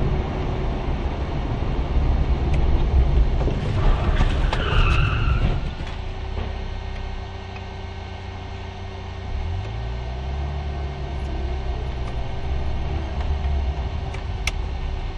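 Engine and road rumble inside a moving car, heard through a dashcam, loud at first and then quieter. About four to five seconds in there is a brief high squeal, and around ten seconds in the engine note rises as the car speeds up. A single click comes near the end.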